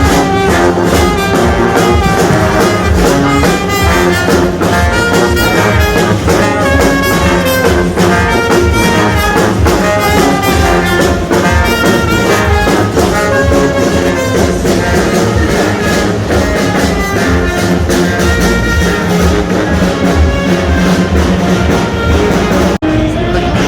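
Background music with a steady beat, breaking off for an instant near the end.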